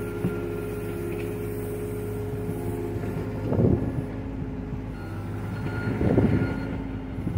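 John Deere mini excavator's diesel engine running steadily while the machine swings and moves. Two louder surges of noise come about three and a half and six seconds in.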